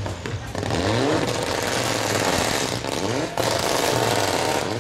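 Rally car engine revving as the car pulls away, its pitch climbing three times over a steady low running note.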